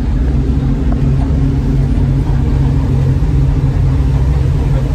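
Rescue boat's engine running steadily under way, a constant low drone heard from inside the boat's cabin.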